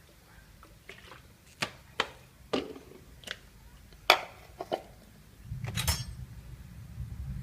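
Kitchenware clinking and knocking: about eight sharp strikes at uneven intervals, the loudest about four seconds in. A low steady rumble starts about five and a half seconds in.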